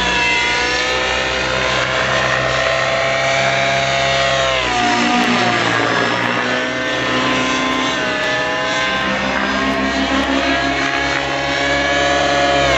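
Radio-controlled 3D helicopter's motor and rotor whine, the pitch sliding down and back up as it manoeuvres, with a marked drop about five seconds in.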